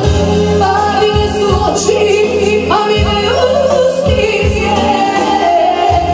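A woman singing live into a microphone over an amplified Korg electronic keyboard playing a steady bass and chord backing through PA speakers.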